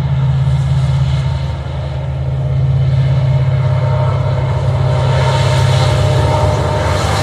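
Express train drawn by a WDP4D diesel locomotive approaching: a steady low engine rumble, with wheel and rail noise growing louder over the last few seconds.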